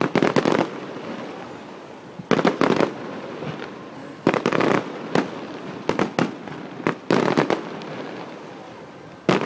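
Aerial fireworks bursting: clusters of rapid sharp bangs, each lasting about half a second, coming every one to two seconds, with a final burst near the end.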